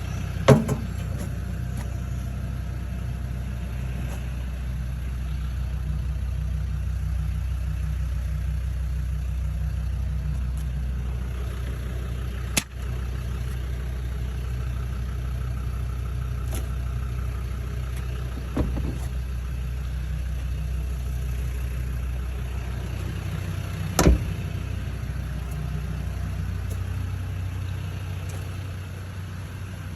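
A motor vehicle's engine idling steadily, with a few sharp knocks scattered through.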